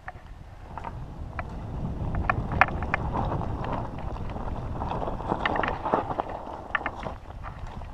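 Mountain bike descending rough dirt singletrack: tyres rumbling over dirt and stones, with frequent sharp rattles and clicks from the bike and wind buffeting the microphone. It grows louder after the first second or two and eases off near the end.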